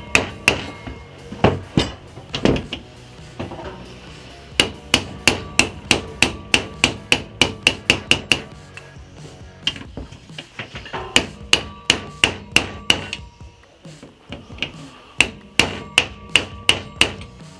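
Hammer striking a deep socket held on a new upper shock bearing, driving the bearing into the heated aluminium eye of a KTM PDS rear shock. Sharp metal knocks come in runs of about three a second, with short pauses between runs.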